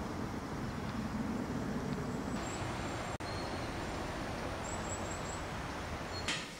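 Steady outdoor background noise with a few faint, short bird chirps; the noise drops out for an instant about three seconds in, and a brief sharp noise comes just before the end.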